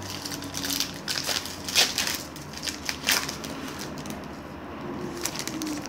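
Baseball card pack wrapper being torn open and crinkled by hand: a run of sharp crackling rips, loudest about two and three seconds in, with a few lighter crinkles near the end.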